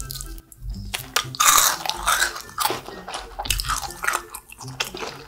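Close-miked eating sounds: crunching and chewing on candy in a snack mukbang, a series of short crackles with soft background music underneath.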